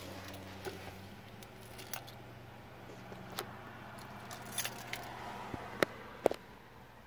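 Car keys jangling and clicking in a few short bursts over the steady low hum of a 2007 Toyota Corolla's four-cylinder engine idling; the hum stops about six seconds in.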